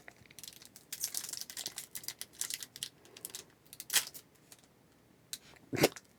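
Foil wrapper of a trading-card pack crinkling as it is handled and torn open, followed by a couple of sharp taps near the end.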